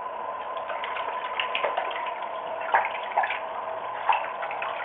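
Tap water running steadily, broken by splashing as an Indian ringneck parrot bathes in it, with a few sharper splashes in the second half.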